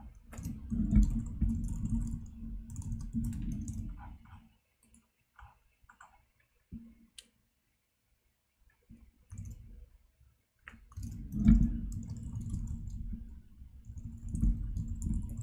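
Rapid typing on a computer keyboard in two long bursts of keystrokes, with a near-quiet pause between them holding only a few isolated clicks.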